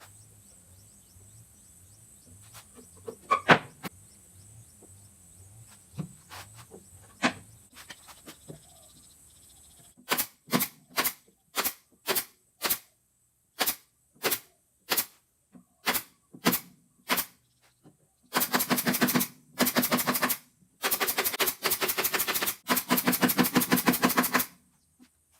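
A few scattered knocks, then from about ten seconds in sharp single bangs about twice a second with dead silence between them, then from about eighteen seconds in three long bursts of very rapid pulses like machine-gun fire.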